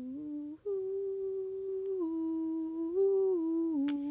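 A person humming a slow tune: long held notes that step up and down, with a short break about half a second in. A single sharp click near the end.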